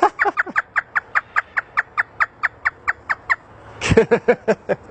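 African grey parrot mimicking a hysterical laugh: a fast run of short, falling 'ha' notes, four to five a second, then a few louder, lower ones near the end.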